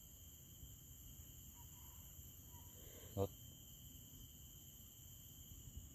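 Faint, steady high-pitched chirring of insects in the background, with one short voice sound about three seconds in.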